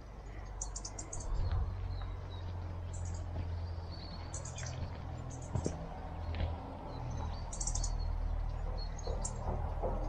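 Small birds chirping outdoors: short, high chirps come every second or two over a low, steady rumble.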